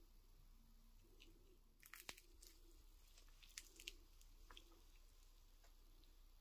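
Faint crackling crunches of crisp fried samosa pastry as it is broken apart by hand, with a cluster about two seconds in and another around four seconds.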